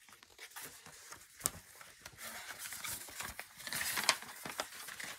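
Paper pages of a paperback picture book being rustled and flipped through by hand, with a few sharp paper flicks.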